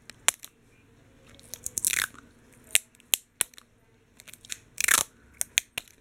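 Handling noise: a scatter of sharp clicks and knocks, with a longer scraping rustle about two seconds in and another about five seconds in, as the phone camera is picked up and moved about.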